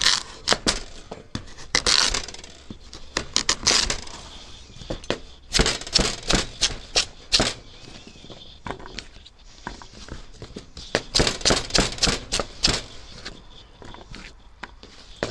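Chef's knife chopping a Hokkaido pumpkin into chunks on a wooden cutting board: repeated sharp knocks of the blade striking the board, in irregular clusters.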